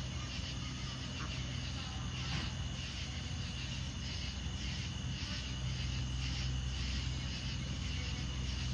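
Crickets chirring steadily over a constant low hum.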